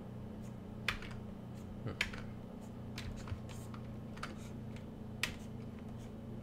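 A handful of short, sharp clicks at irregular intervals from computer input devices, over a steady low hum.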